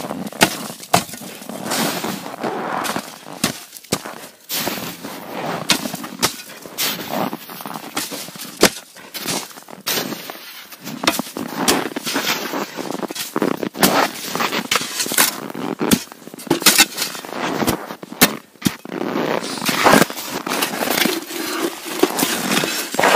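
Metal-bladed shovel chopping and scraping into hard-packed snow and ice: a steady run of crunching scrapes broken by many sharp knocks.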